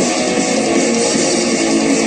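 Music with guitar playing, dense and at an even level throughout.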